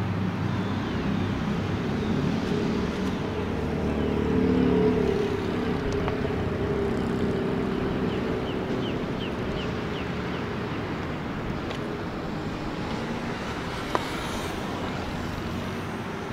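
Steady outdoor traffic rumble, swelling about four to five seconds in, with a run of short high chirps around nine seconds and a single sharp click near fourteen seconds.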